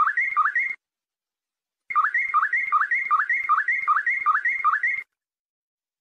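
Canary song in the Moroccan flute-like style: a tour of clear whistled notes, each sliding upward, repeated about three times a second, in two runs with a second-long break between them and silence after the second.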